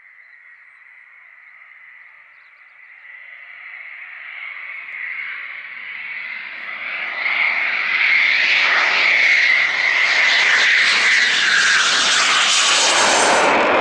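Eurofighter Typhoon's twin EJ200 turbofan engines on final approach for a touch-and-go: a high whine that grows steadily louder as the jet closes in, becoming loud jet noise as it passes low over the runway, with the whine dropping in pitch near the end as it goes by.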